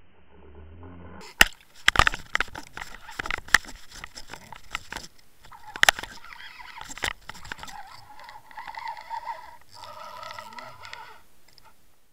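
A pike striking and thrashing on a swimbait, heard through an underwater camera's microphone right at the lure: a run of sharp knocks and clatters over rushing water. In the second half a wavering honk-like tone comes and goes.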